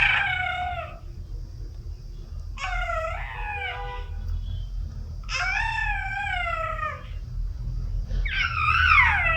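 A baby's drawn-out, high-pitched squealing cries, four of them about two to three seconds apart, each sliding and mostly falling in pitch like a cat's whine. A steady low hum runs underneath.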